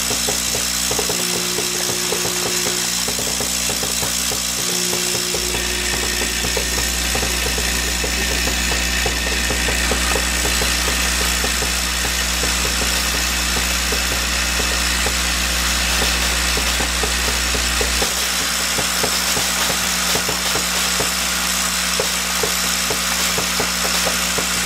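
Dyna-Slide F2148 centerless grinder parts feeder running, with a steady electric hum and a dense, continuous clinking and rattling of small steel pins being shaken and fed along the metal track.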